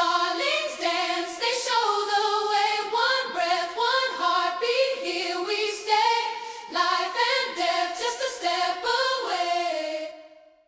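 Wordless sung vocals, a choir-like a cappella passage, fading out at the end.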